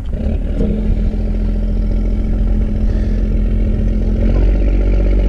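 Fishing boat's engine running steadily, growing slowly louder as the boat passes close by.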